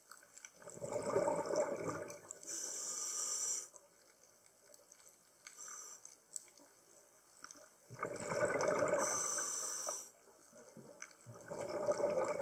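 A scuba diver breathing through a regulator underwater: each breath is a rushing draw followed by a hiss and bubbling on the exhale, two full breaths with a third starting near the end.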